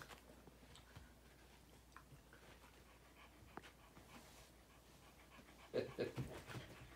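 Two dogs, a West Highland white terrier and an Australian shepherd, play-fighting: mostly faint scuffling, then a short cluster of dog vocal sounds near the end.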